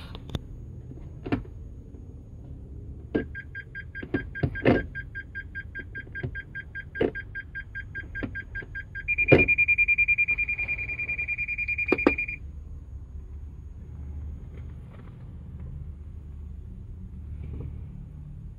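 The electronic shifter of a 2021 Mitsubishi Outlander PHEV clicks several times as it is moved. With reverse selected, the car's warning buzzer beeps rapidly for about six seconds, then holds a steady high tone for about three seconds and cuts off.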